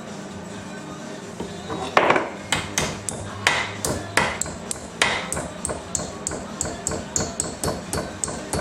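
Hammer striking a small sheet-steel repair patch clamped in a vise, bending it over into a rounded bend. A few heavy, ringing blows start about two seconds in, then give way to a run of quicker, lighter taps about three or four a second.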